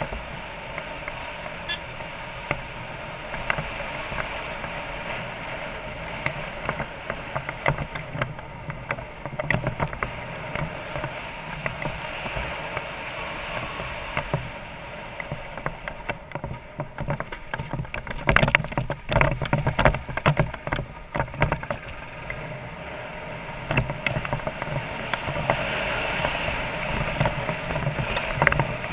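BMW F650GS Dakar's single-cylinder engine running steadily while the bike rides a loose gravel track, with stones crunching under the tyres. About two-thirds of the way through, a run of sharp knocks and rattles comes as the bike jolts over rough ground.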